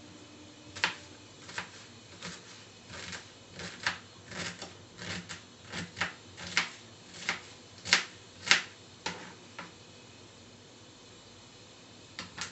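A pan of oil heating on the stove gives off sharp pops and ticks, irregular and about one or two a second, thinning out near the end with a last couple of ticks.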